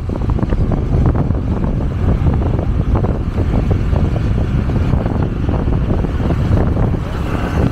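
Wind buffeting the microphone of a camera riding on a moving motorcycle: a loud, steady low rush with gusty flutter, and road and engine noise blended underneath.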